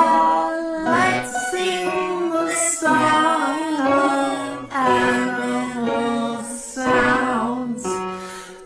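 A children's song: a female voice singing over a bright musical accompaniment.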